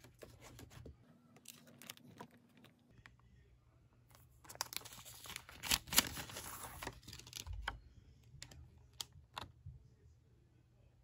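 Clear cellophane packaging around a sheet of epoxy stickers being handled: crinkling and rustling with light clicks and taps, densest and loudest about four to seven seconds in.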